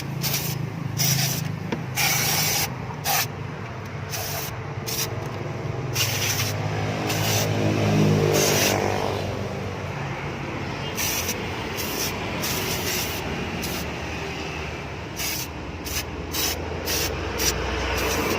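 Aerosol engine cleaner sprayed onto a dirty car engine in many short hissing bursts, with a steady low engine hum underneath.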